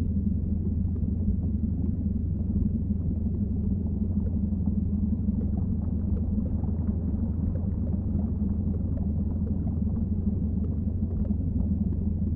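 Steady low rumbling drone, even in level throughout.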